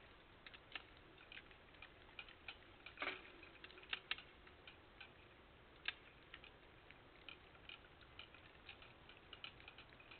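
Raccoon feeding at a sunflower-seed bird feeder, heard through a trail camera's microphone: faint, irregular small clicks and cracks, a few a second, from seeds and the feeder being handled. One louder clack with a brief ring comes about three seconds in.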